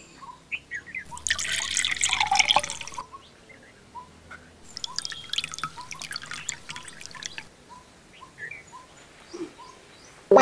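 Water poured from a glass into a man's ear, trickling and dripping in two spells of two to three seconds each.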